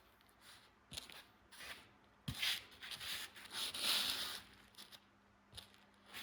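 Irregular bursts of rustling and rubbing close to the microphone, with a few soft knocks in between.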